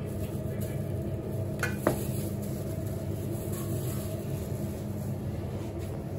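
A knife cutting sucuk slices on a wooden cutting board, with one sharp knock of the blade on the board about two seconds in, over a steady low background hum.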